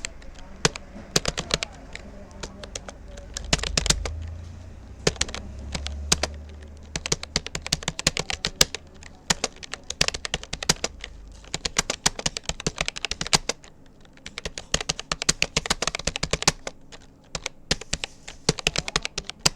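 Fast typing on a Rapoo computer keyboard: a dense, uneven run of key clicks with brief pauses between bursts. A low rumble sits underneath for a few seconds near the start.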